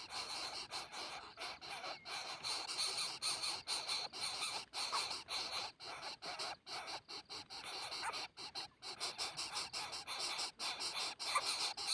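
Coucal nestlings giving rapid, harsh, squealing begging calls, a dense run of short raspy notes, as they are being fed.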